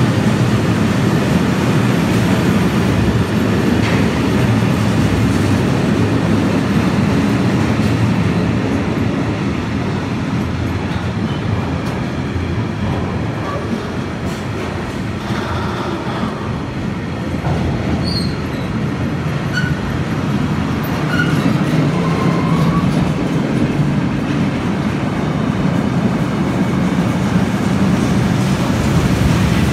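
A freight train of bogie tank wagons rolling steadily past on the near track: a continuous rumble of wheels on the rails. A few faint short high squeaks come partway through.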